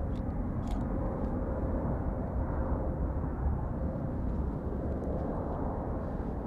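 Steady jet engine rumble of a departing Boeing 787-8 climbing away, with a faint steady tone in the noise.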